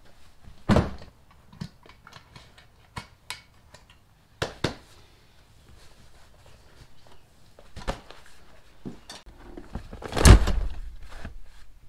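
A loaded hiking backpack being handled: a thump as it is set down near the start, light clicks and rustles as its straps and buckles are worked, then the loudest, heavier thud about ten seconds in as it is loaded into a car's cargo area.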